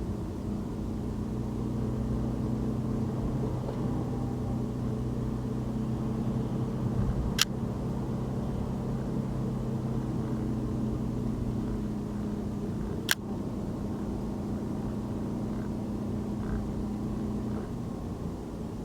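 Car driving on a city road: a steady drone of engine and tyre noise with a low hum, and two sharp clicks, one about seven seconds in and one about thirteen seconds in.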